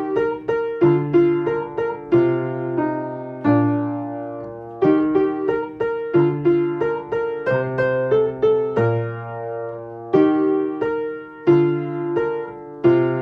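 Solo piano playing a children's song accompaniment: a melody of quickly struck notes over low notes that are held, with a fresh chord about every second or so.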